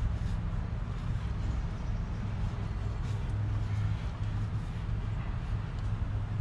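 A steady low mechanical hum from a running machine or motor.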